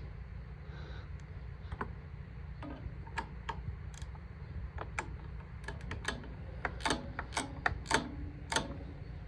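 Sharp, irregular clicks and clinks of a hand wrench working a bolt on the baler's knotter, sparse at first and busier from about five seconds in, over a steady low rumble.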